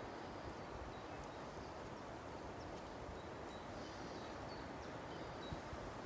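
Steady outdoor background: an even rushing noise with short, faint, high chirps scattered through it.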